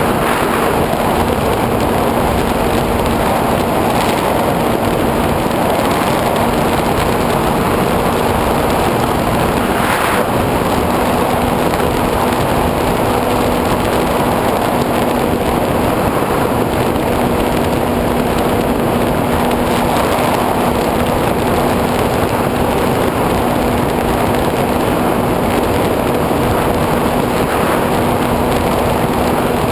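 Steady rush of air over the onboard camera of a SkyWalker 1900 FPV plane in flight, with the even hum of its electric motor and propeller underneath.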